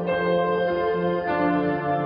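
Ambient background music of slow, held notes.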